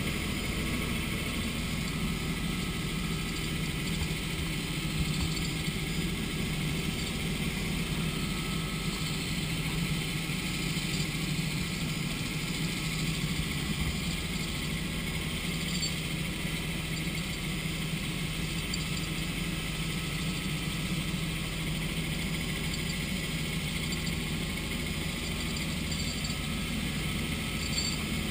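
Robinson R66 turbine helicopter's engine and rotors running steadily in flight, heard from inside the cockpit as an even, unchanging drone with a hiss on top.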